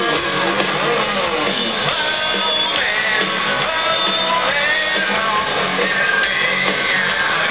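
Live rock band playing at full volume, with electric guitar, recorded from within the concert crowd.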